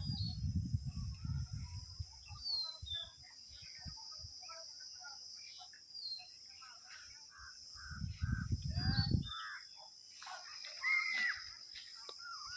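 Rural outdoor ambience: a steady high-pitched insect drone, with birds calling now and then in short chirps and falling notes. Low rumbles near the start and again about eight seconds in.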